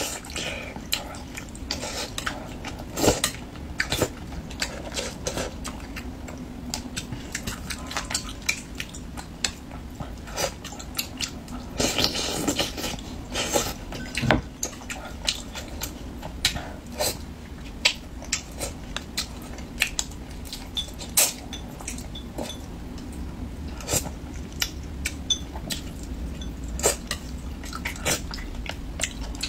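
Close-miked eating of soft, saucy braised fish with chopsticks: irregular wet chewing and mouth clicks, with light clicks of chopsticks on the dish. There is a longer, louder stretch of eating noise about twelve seconds in.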